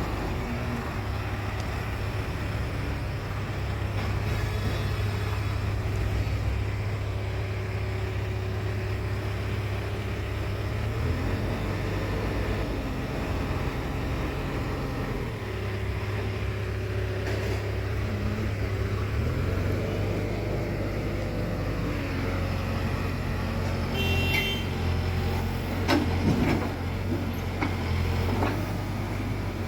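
Diesel engine of a Case 851EX backhoe loader running steadily, its note shifting a few times, with several knocks near the end.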